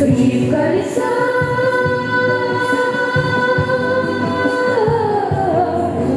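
A boy singing over a backing track with a beat, holding one long note for about four seconds, then sliding down in pitch near the end.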